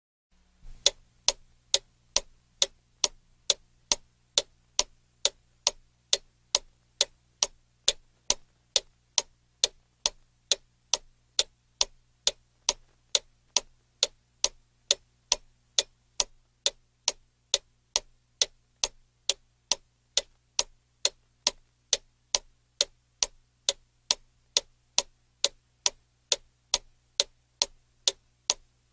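Clock ticking: sharp, evenly spaced ticks in a steady rhythm, starting about a second in, over a faint low hum.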